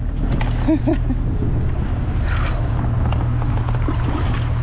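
Steady low rumble of wind buffeting the action camera's microphone on a kayak, with a couple of short vocal sounds about a second in.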